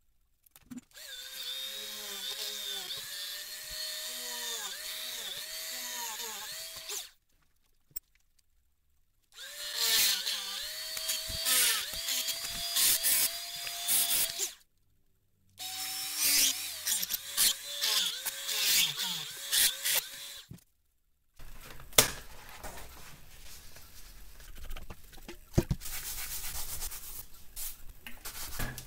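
Handheld rotary tool drilling holes in a copper-clad circuit board: the motor's whine dips each time the bit bites in and recovers as it comes out, in three stretches with short silences between. From about two-thirds of the way in, this gives way to rubbing and scrubbing with a few knocks, as the board is wiped with a cloth and solvent to strip off the photoresist.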